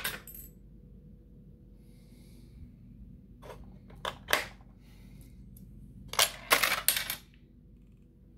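A Canadian two-dollar coin (toonie) dropping through a vending machine's coin mechanism, with sharp metallic clicks and rattles in two clusters, the louder one near the end.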